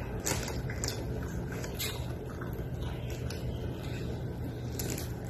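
Pancit noodles being eaten close to the microphone: wet chewing and slurping, with a few short sharp crackles scattered through, over a steady low hum.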